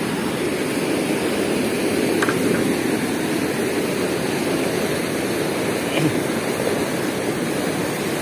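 Strong current of churning white water rushing through an open sluice gate of a river weir: a steady, even rush of water.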